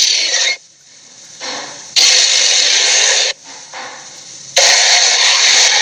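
Harsh, breathy creature roars made as sound effects for a tiger-gorilla hybrid, in three long hissing bursts of a second or more each: one fading about half a second in, one about two seconds in, and one starting near the end.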